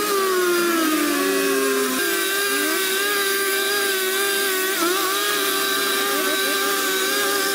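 Chainsaw engine running at high revs, its pitch dipping briefly near the start and again about five seconds in.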